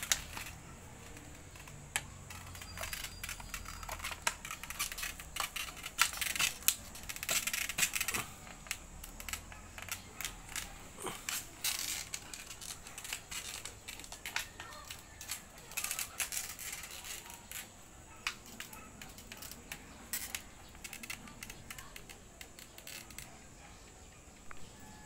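A Belgian Malinois biting and chewing a plastic water bottle on a string: irregular sharp crackles and crunches of the plastic, coming in clusters, busiest through the middle.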